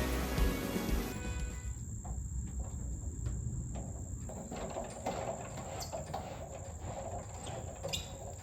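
Background music ending about a second in, then a steady high-pitched insect trill, like a cricket's, over faint outdoor background noise.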